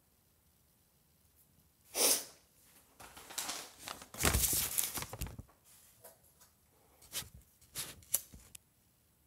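Handling noise from a hand-held camera and a plastic card: a short loud burst of noise about two seconds in, then a few seconds of irregular rubbing and bumping with some deep thumps, and a few sharp clicks near the end.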